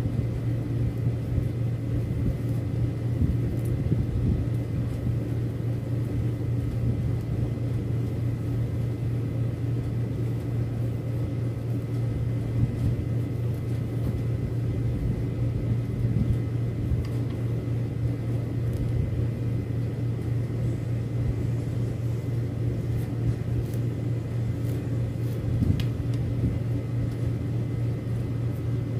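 Steady low mechanical hum of a running machine, unchanging throughout, with faint steady higher tones over it and a few small clicks.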